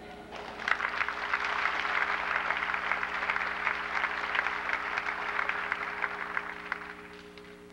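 Audience applauding: dense clapping starts about half a second in and dies away near the end, over a steady low hum.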